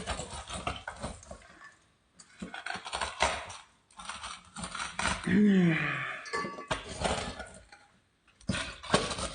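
A masher knocking and clinking against a bowl while crushing hot Cheetos, in repeated short strikes. About halfway through comes a brief voice sound that falls in pitch.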